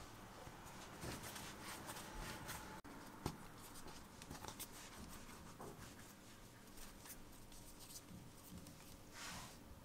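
Faint rubbing and soft scratchy pats of floured hands rolling and shaping soft dough pieces on a wooden board, with one sharper tick about three seconds in.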